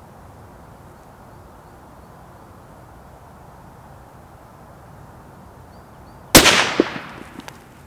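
A single shot from a Sako S20 bolt-action rifle in .308 Winchester, firing a 165-grain Hornady GMX copper load, about six seconds in. The report dies away over about half a second, followed by a couple of faint clicks.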